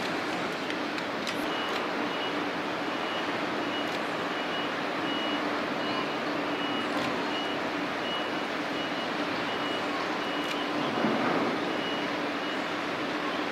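A regular series of short high electronic beeps, like a vehicle's reversing alarm, over a steady rumble of wind and engine noise.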